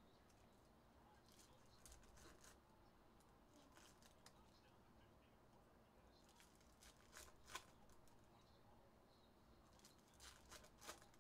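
Faint tearing and crinkling of foil trading-card pack wrappers (Topps Cosmic Chrome) being ripped open, in a few short crackly bursts about two, seven and ten seconds in.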